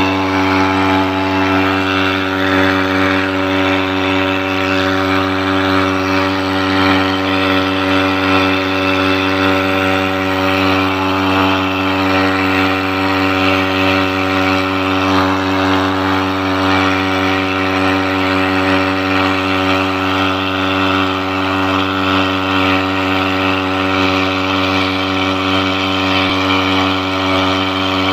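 Small air-cooled outboard motor running at a steady, unchanging speed, driving the boat along.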